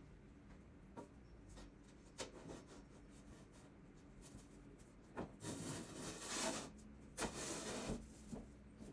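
Light knocks, then from about five seconds in a stretch of rubbing and scraping with a few sharp knocks: workbench parts being handled and fitted during assembly.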